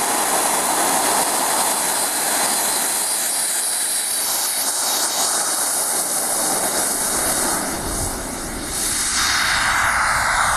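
Evojet model jet turbine running at high power on the takeoff run of a Super Sonic delta-wing RC jet: a steady, loud rushing blast with a high whine over it. About eight seconds in it dips briefly, then comes back harsher as the jet lifts off.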